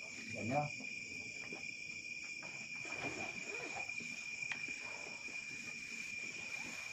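Steady chorus of night insects, a constant high-pitched trill that never breaks. Faint low voices come through briefly about half a second in and again around three seconds in.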